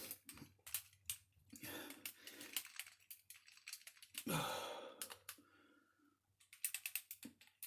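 Scattered clicks and light clatter of hard plastic RC kit parts being handled and fitted together, with a breathy exhale about four seconds in.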